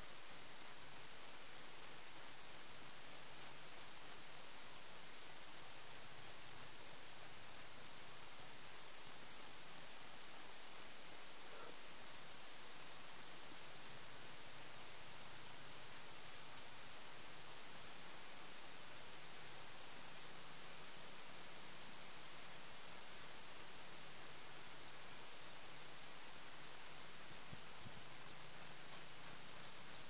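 Crickets chirping: a high, rapid, evenly pulsed chirp runs on steadily, and a second cricket at a slightly lower pitch chirps along with it from about a third of the way in until near the end.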